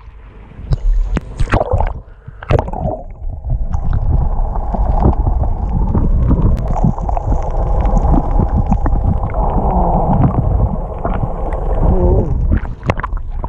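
Sea water gurgling and sloshing around an action camera held half-submerged and then underwater. It splashes as it breaks the surface a few times in the first couple of seconds and again near the end. In between it gives a steady, muffled underwater rush.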